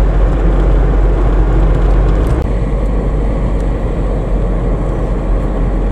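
Road and engine noise inside a moving car: a loud, steady low rumble with a hiss above it, the hiss dropping off about two and a half seconds in.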